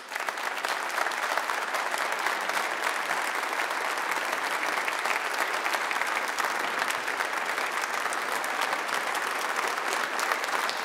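A large congregation applauding, many hands clapping steadily without letting up.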